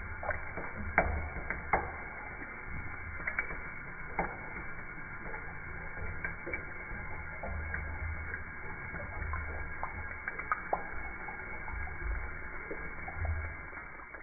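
Slowed-down, muffled sound of a cat lapping from a thin stream of tap water running into a stainless steel sink: a low rumble with irregular soft clicks and drips about once a second.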